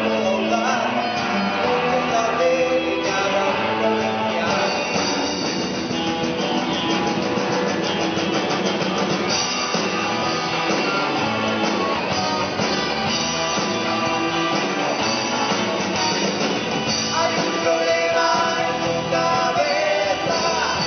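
Rock band playing live on stage: electric guitars, bass and drum kit, with sung vocals.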